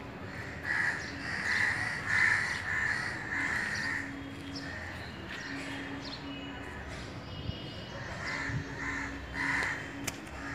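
Harsh animal calls repeated about twice a second: a run of about six in the first few seconds, then three or four more near the end.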